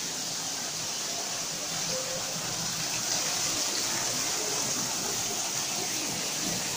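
Small artificial waterfall pouring steadily into a pond, an even rushing splash of falling water.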